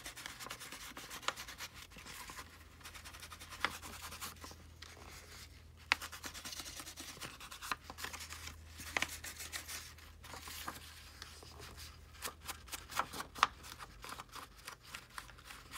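An ink blending tool rubbed and dabbed along the torn edges of a sheet of paper: soft scratchy scuffing and paper rustling with scattered light taps.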